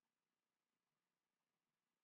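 Near silence: a dead-quiet pause with no audible sound.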